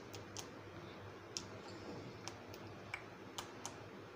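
Spoon clinking against a white bowl while fresh cream and condensed milk are stirred by hand: several light, irregular clicks over a faint steady hum.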